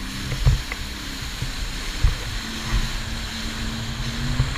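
Personal watercraft (jet ski) engine running at speed, a steady engine note that rises slightly in the second half, under wind buffeting on the microphone and rushing spray, with a few low thumps as the hull hits the chop.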